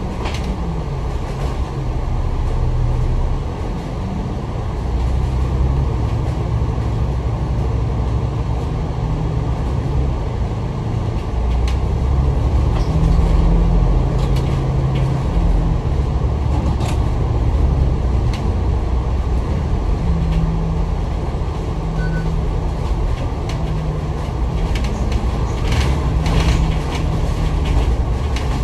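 Citybus bus heard from inside while under way: the engine's drone rises and falls as it speeds up and slows, over the steady noise of loud air conditioning, with a few brief rattles and clicks.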